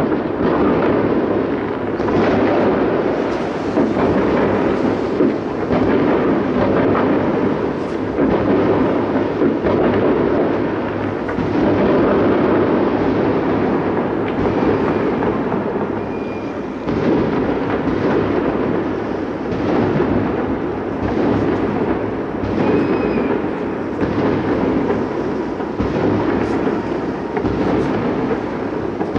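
Many fireworks going off across a city, their booms running together into a continuous rolling rumble with sharper bangs all through it. A couple of short whistles come in the second half.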